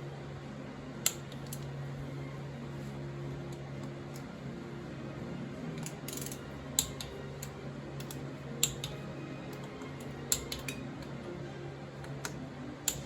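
Sharp metallic clinks of hand tools and parts being handled, about eight of them scattered irregularly over a steady low hum.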